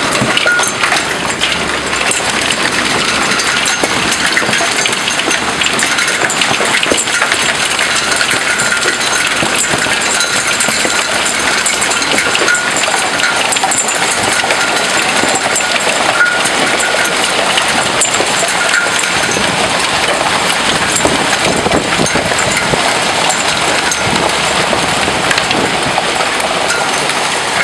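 Hailstorm with heavy rain: a loud, steady hiss of rain full of the quick, hard ticks of hailstones striking the ground and outdoor surfaces.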